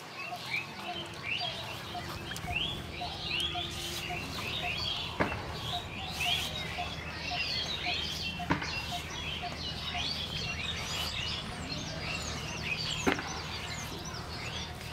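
Many small birds chirping and twittering, with a soft call repeating about twice a second underneath. Three sharp clicks stand out, about five, eight and a half and thirteen seconds in.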